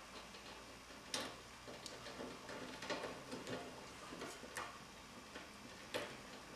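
Faint, scattered small clicks and light knocks from hands working the ceiling fan's wiring and plastic wire nuts, about six sharp clicks spread irregularly over the few seconds.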